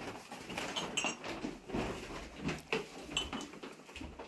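Small glass tea glasses clinking against each other and a metal tray as they are handled, a scattering of light clinks and knocks.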